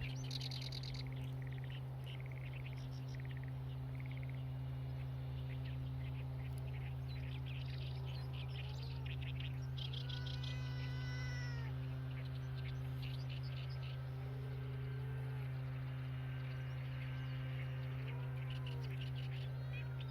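A chorus of small songbirds chirping and singing, many overlapping calls, with a quick falling run of notes about halfway through. A steady low hum runs underneath.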